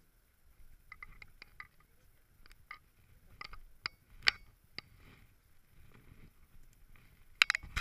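Bicycle being ridden, with scattered sharp clicks and light rattles from the frame and parts, then a louder run of knocks and rattling near the end.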